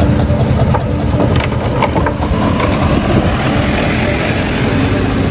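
Motor vehicle engine running close by, a steady low rumble with a faint hum.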